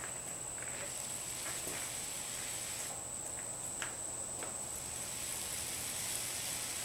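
Paint roller working wet DuraTex roller-grade texture coating over a speaker cabinet: a soft, steady rustling hiss with a few faint clicks, over a steady high whine.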